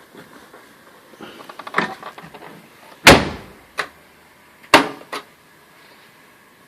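Whirlpool Duet front-loading washer's drum banging hard against the tub during the spin cycle. There are two loud knocks about a second and a half apart, with lighter clunks around them. The knocking comes from a broken spider arm on the basket.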